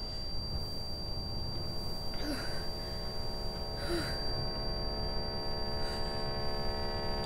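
Steady electric-sounding hum with a thin high whine above it and a low rumble beneath: a tense sound-design drone. Two faint, brief soft sounds rise over it about two and four seconds in.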